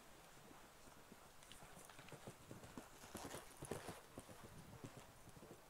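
Faint hoofbeats of a show-jumping horse cantering on a sand arena, heavier for a moment about three to four seconds in as it clears a fence.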